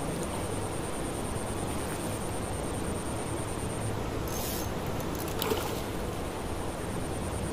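Steady outdoor wind and river noise while a hooked fish is fought on a spinning rod. A short hissing splash comes a little past halfway, as the fish thrashes at the surface, followed by a small sharp splash.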